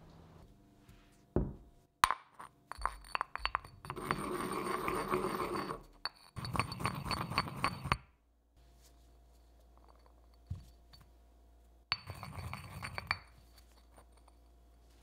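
Granite pestle clinking and knocking against the inside of a granite mortar, then grinding round the bowl in two long stretches of stone-on-stone scraping. There is a single knock later, then another short scrape near the end.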